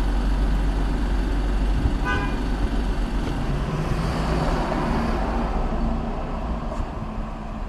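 A car horn gives one short honk about two seconds in, over a steady low rumble of traffic and engines. It is an impatient honk at a driver who won't turn right on red.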